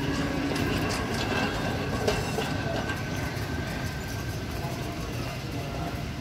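A steady rattling rumble of wheels rolling over a hard floor, with a few sharp clicks, the loudest about two seconds in.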